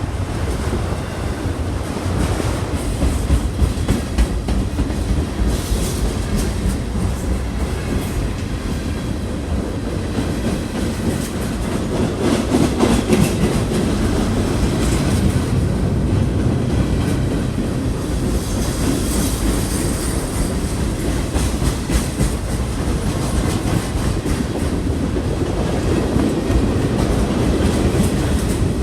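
A passing train's cars rolling along the rails: a steady rumble with a run of wheel clicks over the rail joints.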